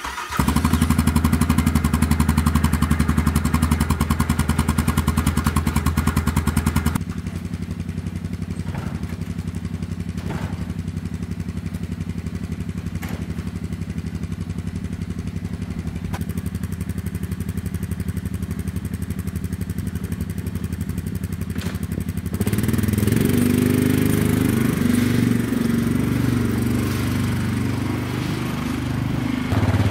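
ATV engine starting and running at a steady idle. About 22 seconds in, its note begins to rise and fall as it is revved or ridden.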